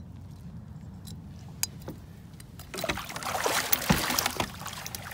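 A muskie thrashing in a landing net at the water's surface, splashing hard for about two seconds starting around the middle, over a low steady rumble, with a few sharp clicks just before.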